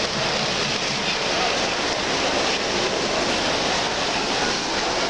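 S gauge model trains running on a show layout: a steady rumbling whir of wheels on track blended with the constant noise of the exhibition hall.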